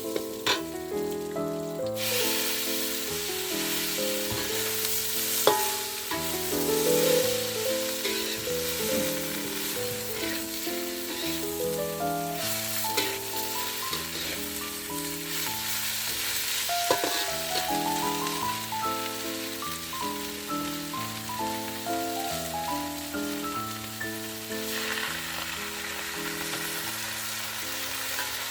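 Food sizzling as it fries in a pan, with a few sharp knocks of stirring, starting about two seconds in. Background music with a melody of held notes plays throughout.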